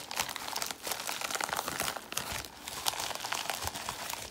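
Plastic poly mailer crinkling and rustling in the hands as it is handled and opened: a dense run of small crackles.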